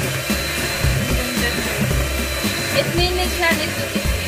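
Electric hand mixer running steadily, its beaters whisking pandan cake batter in a metal bowl.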